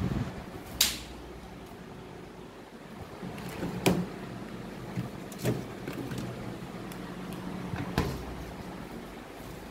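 Refrigerator door and drawers being handled: a handful of sharp clicks and knocks, the loudest about a second in, near four seconds and at eight seconds, over a steady low hum.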